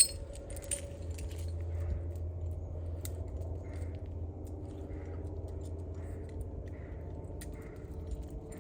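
Steel dog chain and bull snap clinking as a link is forced over the snap by hand: a sharp metallic click at the start, then a few light clinks over a steady low hum.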